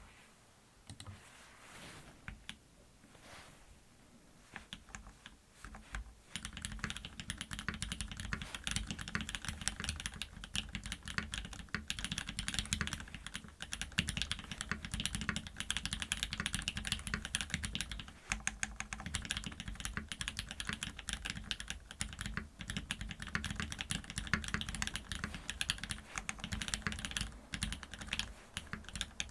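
Typing on a Duck Viper v3 mechanical keyboard with lubed, filmed Cherry MX Black Hyperglide linear switches on an FR4 plate, with GMK keycaps. Keystrokes are scattered and lighter at first, then become a fast, continuous run of clacks about six seconds in.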